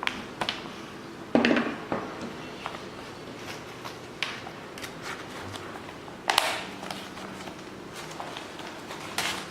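Handling noise of a hand-held snap button press and boat canvas: scattered clicks and knocks, with louder noisy bursts about a second and a half in, about six and a half seconds in, and near the end.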